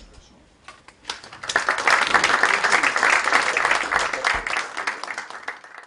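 Audience applauding, beginning about a second in, then fading out near the end.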